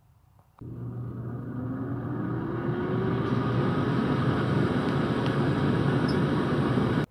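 Power AirFryer XL starting up about half a second in: its convection fan spins up with a rising whine over a low hum and steady rush of air, then runs steadily.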